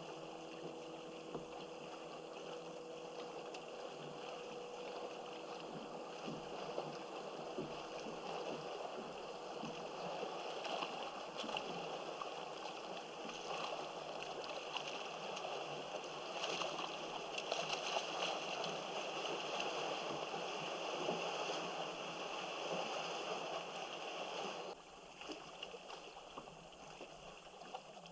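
Water lapping and gurgling against a kayak's hull, growing louder through the middle and dropping off suddenly near the end.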